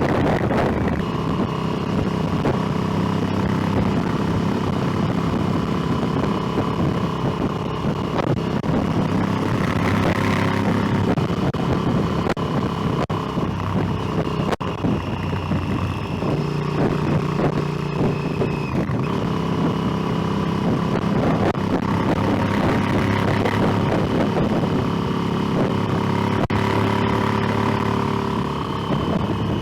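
Motorcycle engine running under way, its pitch shifting with throttle and gear changes, with wind and road noise on the microphone.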